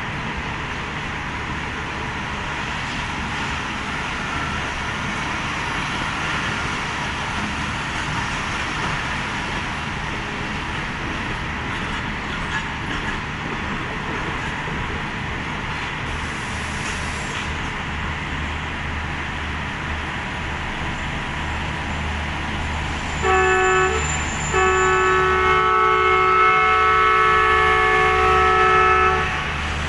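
Pakistan Railways passenger coaches rolling past on the rails with a steady rumble of wheels. Near the end a locomotive horn sounds, a short blast and then a long one of several tones at once.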